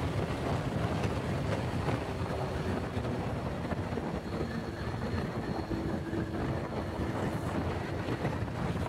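Wind buffeting the microphone over the steady running of a Honda Pop 100's small single-cylinder engine, cruising at road speed.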